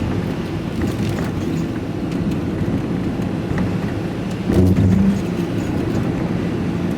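Engine and road noise heard from inside a vehicle's cab while driving, a steady low rumble. About four and a half seconds in it briefly swells louder for under a second.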